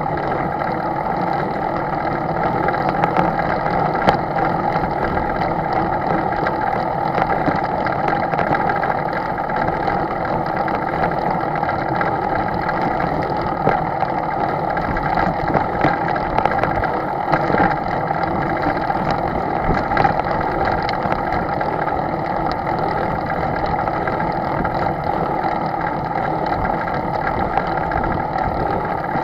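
An engine running steadily at an even speed, a constant hum with a few fixed tones and no change in pitch.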